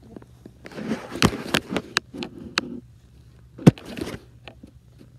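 Handling noise on a phone's microphone as a cat's fur and a hand rub against it: rustling and scraping for the first couple of seconds, then several sharp knocks, the loudest a little past halfway.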